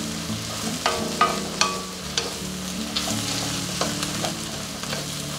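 Vegetables sizzling as they stir-fry on high flame in a metal kadai, with a wooden spatula scraping through them and knocking against the pan. Three sharp knocks come close together about a second in.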